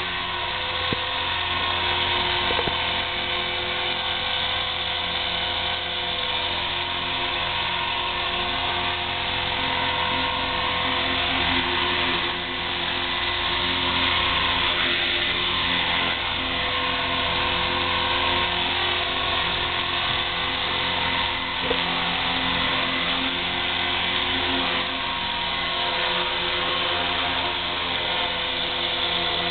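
KDS 450 flybarless RC helicopter hovering: a steady high whine from its electric motor and spinning rotor blades, wavering slightly in pitch as it holds position just above the grass.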